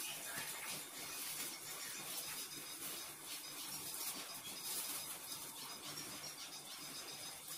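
Faint rustling and soft scraping of plastic-gloved hands rolling kibbeh balls in breadcrumbs on metal trays, with a few faint high squeaks.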